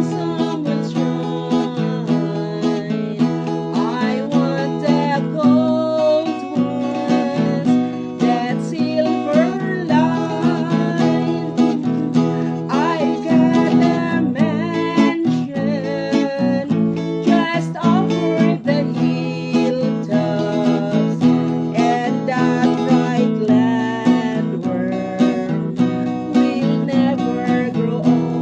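Music: acoustic guitar with singing.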